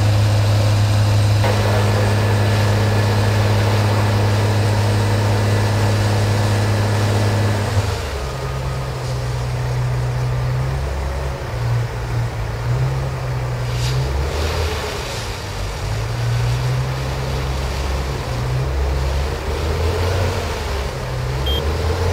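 Diesel engines of fire trucks running steadily under pumping load, a loud deep drone. About eight seconds in the drone changes and becomes uneven and wavering.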